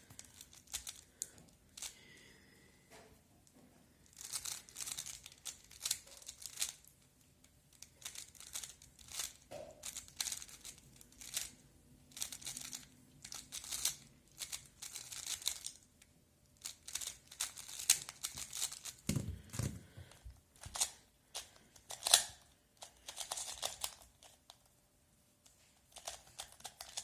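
Plastic speedcube being turned quickly by hand during a timed solve: rapid, irregular clicking and rattling of the layers, in spurts broken by short pauses.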